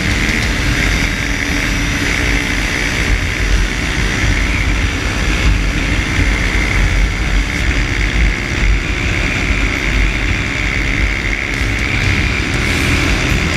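Motorcycle engine running steadily at road speed, with heavy wind rumble on the handlebar-mounted microphone.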